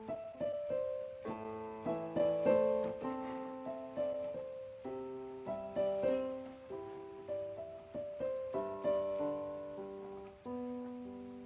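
Background piano music, a slow melody of chords and single notes that fade after each strike.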